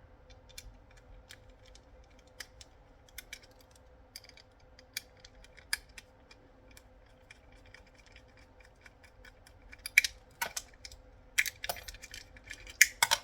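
Light, scattered clicks and taps of small hand tools on the circuit board and plastic casing of a radio-control handset being taken apart, with a run of louder clicks and clatter about ten seconds in and again near the end.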